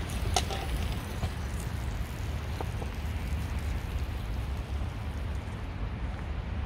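Wind buffeting the microphone: a steady, fluttering low rumble, with a few light clicks about half a second in.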